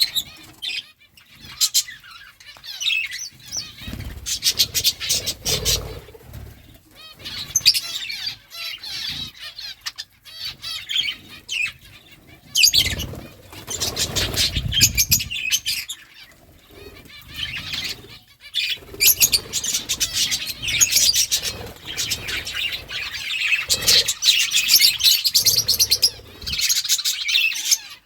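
Budgerigars chirping and warbling continuously, a busy chatter of high, wavering calls, with many short clicks mixed in.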